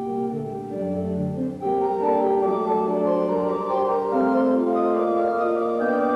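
Instrumental background music of held chords that change every second or so, swelling louder about two seconds in.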